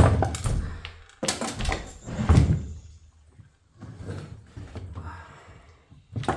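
Heavy thuds and knocks of an automatic transmission's metal case being handled and shifted. There are three strong thuds in the first two and a half seconds, then lighter knocking and scraping.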